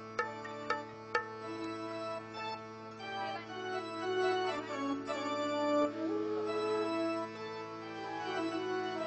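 Indian devotional music from a keyboard instrument: a melody played over a steady held drone, with a few sharp tabla strokes in the first second or so.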